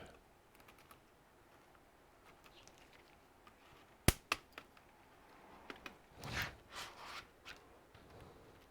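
Faint handling noises while a laptop's plastic case is worked apart. Two sharp clicks come about four seconds in, followed by light scraping and rustling.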